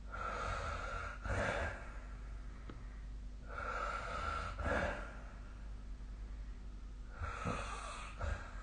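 A sleeping person snoring. There are three slow breaths about three and a half seconds apart, each a rasping breath of about a second that ends in a short, louder snort.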